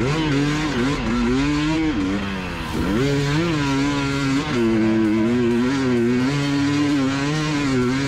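Two-stroke enduro motorcycle engine being ridden hard, its revs rising and falling with the throttle: climbing through the first two seconds, dropping off briefly near the middle, then picking up again and holding fairly steady.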